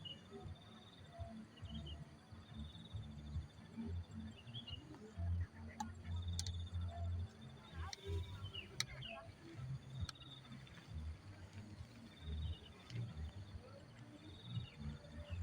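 Insects trilling: short, high, pulsing trills that come back every couple of seconds, one held longer in the middle, over a low, uneven background rumble.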